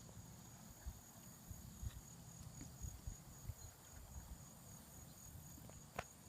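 Insects chirring steadily in a high, pulsing tone, with soft low thumps of handling and one sharp click near the end.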